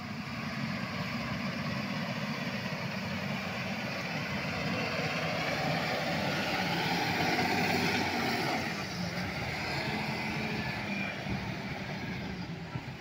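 Diesel engine of a Power Plus wheel loader running as the loader drives past close by, growing louder to a peak about halfway through, then easing off.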